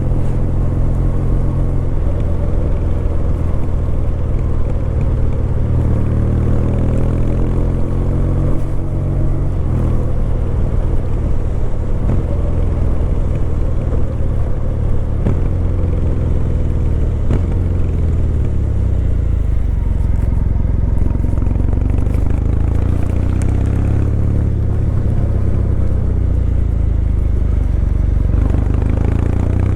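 Kawasaki W800's air-cooled parallel-twin engine running under way, its pitch rising as it accelerates and dropping back several times as gears change, then settling to a lower, steadier note over the last third.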